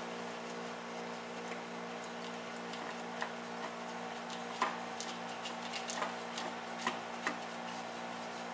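Scattered light clicks and taps of hands fitting a new spin-on oil filter onto a John Deere 5400 tractor's three-cylinder diesel, over a steady background hum.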